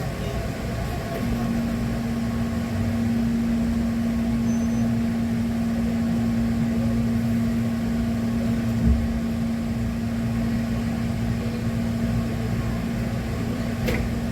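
Inside a Hankyu electric train car moving slowly through the depot: a steady low rumble with a steady hum that sets in about a second in, and a single thump about two-thirds of the way through.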